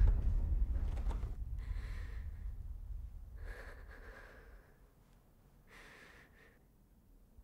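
A woman breathing in fear: three breaths about two seconds apart. Under them a deep low rumble fades away over the first few seconds.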